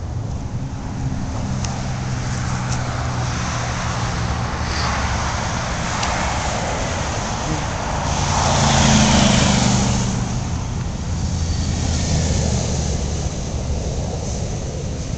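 Road traffic with a steady low engine hum; one vehicle passes, loudest about nine seconds in.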